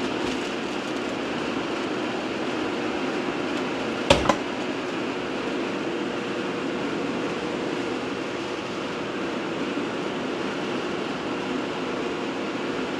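Steady whir of a laminar flow hood's fan, with one sharp click about four seconds in as the automatic impulse foot sealer's jaws clamp shut on a plastic grain spawn bag to heat-seal it.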